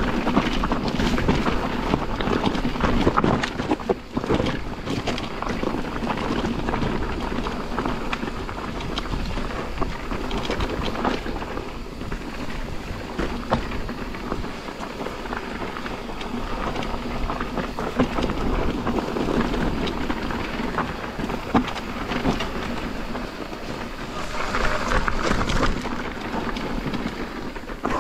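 Wind rushing over the microphone and mountain bike tyres rolling over a rough dirt trail during a descent, with many short knocks and rattles from the bike.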